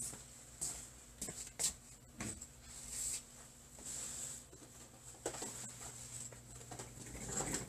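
Chalk writing on a blackboard: irregular short taps and scratches as the chalk strikes and drags across the board.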